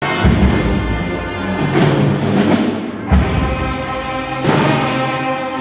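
High school marching band playing: brass section with sousaphones and trumpets holding long, loud chords, with heavy bass drum hits about every three seconds.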